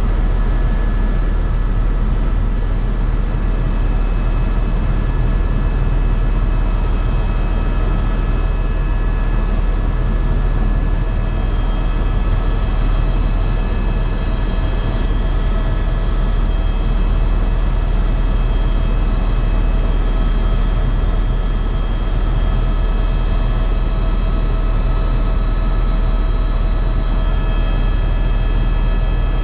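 Cabin noise inside a Eurocopter EcoStar (EC130) helicopter in steady flight. A loud, unbroken deep drone runs under several constant whining tones, and a few higher whine tones join about a third of the way in.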